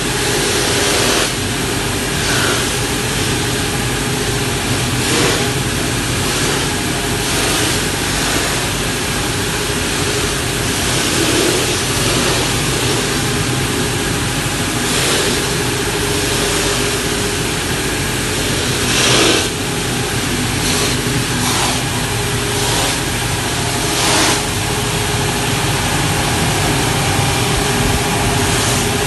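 Timesaver sanding and deburring machine running steadily with a constant hum and hiss, with several short louder swells.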